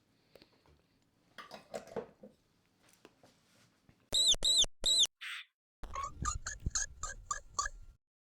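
Mouse squeak sound effects: three loud, high squeaks, each rising and falling in pitch, come in quick succession, followed about a second later by a rapid run of about nine shorter, lower squeaks. Faint rustling comes before them.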